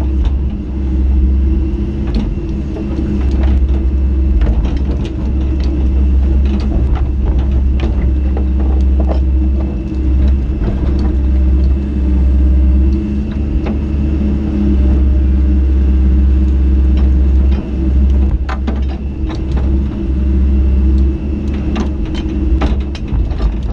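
Excavator diesel engine running steadily, with scattered sharp metal clanks and knocks throughout.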